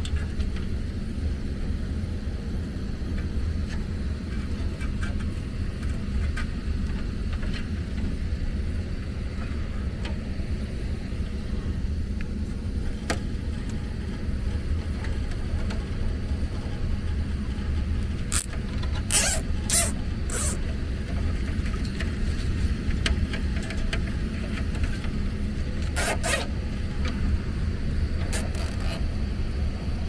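Steady low hum of the heat pump's indoor air handler running. Over it, several short zipping rasps come a little past the middle and once more later, as a plastic cable tie is ratcheted tight around the loose TXV sensing bulb.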